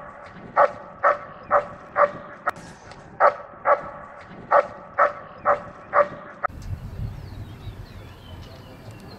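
A dog barking over and over at an even pace, about ten short barks of the same pitch, which stop about six and a half seconds in. After that there is only a low outdoor rumble with faint clicks.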